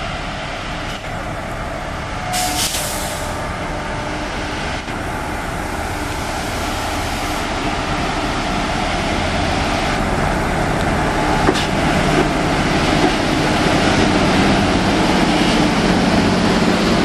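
WAM-4 electric locomotive hauling an express train, approaching and passing at a slow departure speed; its running noise grows steadily louder as it nears. A brief hiss about two and a half seconds in.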